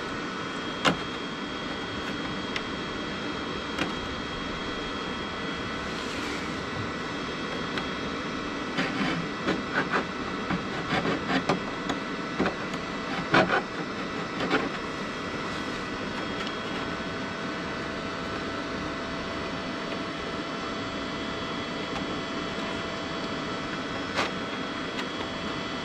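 Cheap flux-core wire welder running with a steady hum. In the middle comes a string of short, sharp crackles, like quick tack welds on thin sheet steel, and a few single clicks fall either side of them.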